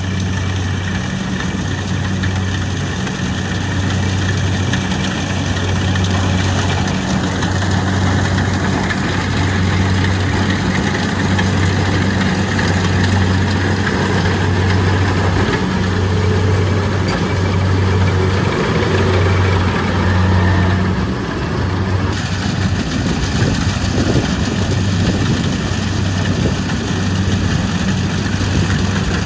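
Kubota rice combine harvester's diesel engine running steadily: a loud, even low hum with dense mechanical clatter and rustle over it.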